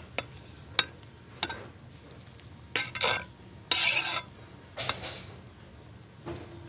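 Perforated metal skimmer stirring cooked pulao rice in a metal pot: a few sharp clinks against the pot, then several scraping strokes, the loudest about four seconds in.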